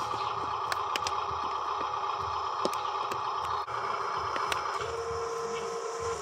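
Electric drive motor and gearbox of a Huina RC dump truck whining steadily as it crawls over dirt and twigs, with scattered small clicks and crackles. About five seconds in, a second, lower steady hum joins.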